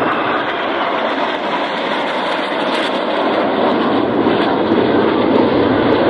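Steady rushing jet noise from a formation of F-5E Tiger II fighters passing, each jet powered by two J85 turbojets, growing a little louder near the end.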